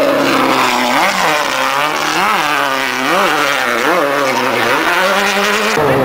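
Off-road race car engine running loud as it passes, its pitch rising and falling about four times, roughly once a second, as the throttle is worked; just before the end the sound changes as another vehicle comes in.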